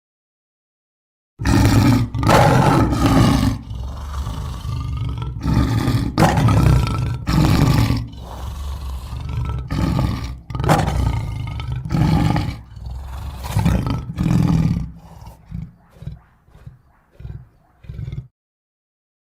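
Fictional dinosaur creature roar sound effect, mixed from Giganotosaurus and lion roars: after about a second and a half of silence, a string of loud roars, trailing off into shorter, quieter bursts that stop shortly before the end.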